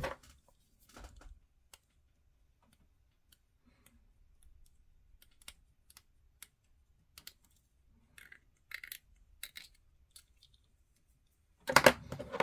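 Light, scattered clicks and scrapes of a small plastic miniature part being handled between the fingers while a hobby knife tip is worked against it, with a louder clatter of handling noise near the end.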